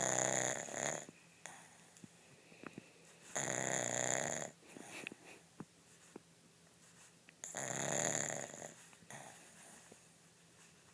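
A sleeping pug snoring: three loud snores about four seconds apart, each lasting about a second, with quieter breathing between. Heavy snoring like this is typical of the breed's short, flat muzzle.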